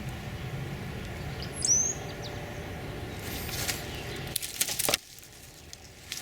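A single sharp, high bird chirp a little under two seconds in, over steady low outdoor background noise. About four and a half seconds in comes a quick cluster of clicks, and then the background drops away suddenly.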